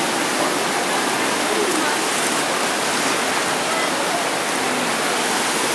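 Steady rush of a shallow mountain river's whitewater pouring over rocks in rapids, with faint voices of people in the background.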